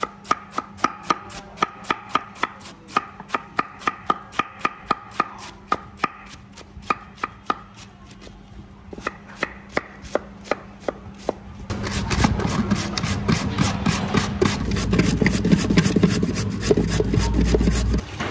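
Knife chopping on a cutting board in a steady run of sharp strokes, about three a second. About twelve seconds in, a louder, denser scraping and rubbing noise takes over.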